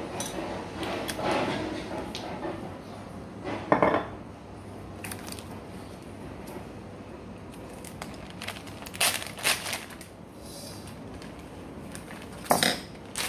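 Oil poured from a plastic bottle into a stainless steel mixing bowl, then kitchen handling noises with several sharp clinks and knocks of a metal spoon and bowl. The loudest knock is about four seconds in, with two more around nine seconds and another near the end.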